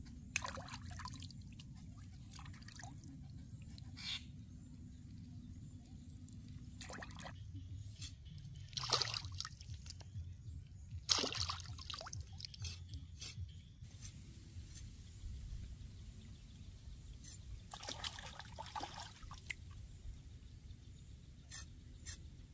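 Water splashing and trickling in short, irregular bursts as hands work in shallow creek water, over a low, steady background noise.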